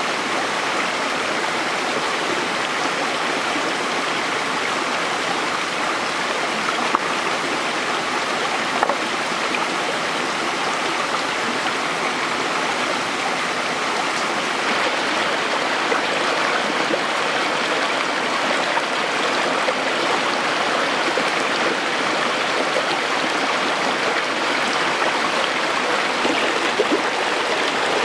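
Shallow rocky mountain stream rushing and splashing over stones in small cascades, a steady, even rush, with now and then a light knock.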